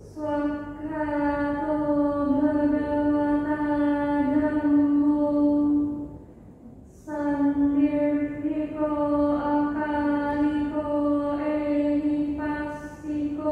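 A woman chanting Buddhist paritta on one sustained, unchanging pitch, in two long phrases with a short breath pause about six seconds in.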